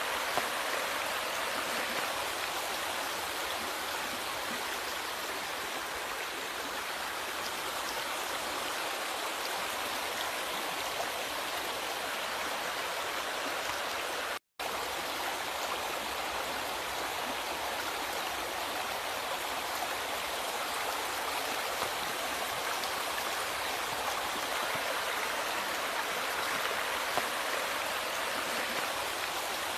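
River water flowing steadily, an even rushing and babbling with no letup, broken by a momentary cut to silence about halfway through.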